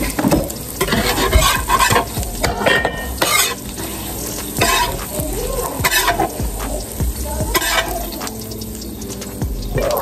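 Pancakes sizzling on a griddle, with a spatula scraping and knocking against the griddle surface several times.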